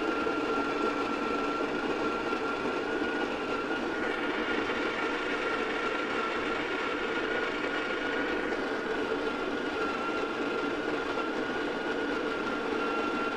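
Breville Smart Grinder Pro burr coffee grinder running steadily, a loud motor whine with a high tone over it as it grinds coffee beans.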